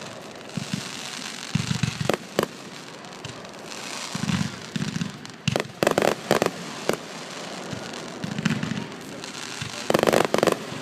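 Aerial fireworks bursting: a string of sharp bangs and deeper booms with crackling between them, ending in a loud cluster of reports near the end.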